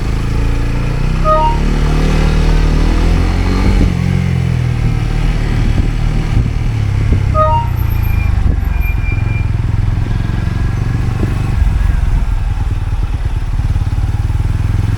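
TVS Apache RTR 200's single-cylinder engine running under way. Its pitch climbs over the first few seconds and drops suddenly about four seconds in, as with an upshift. A short three-note electronic beep sounds twice.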